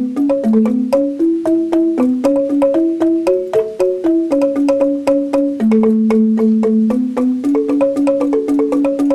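Rindik, a Balinese bamboo xylophone, played with two mallets: a quick, even stream of struck bamboo notes, a slower melody line underneath a faster interlocking pattern above.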